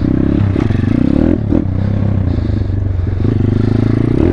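Thumpstar 140cc pit bike's single-cylinder four-stroke engine under throttle as it is ridden over ramps. It revs up at the start, eases off about a second and a half in, then revs again near the end.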